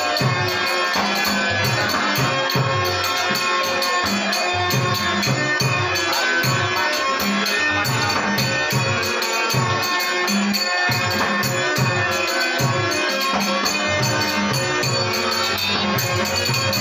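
Live Dashavatar theatre music: a harmonium holds a steady melody while a drum beats a quick repeating rhythm and small hand cymbals tick along with it.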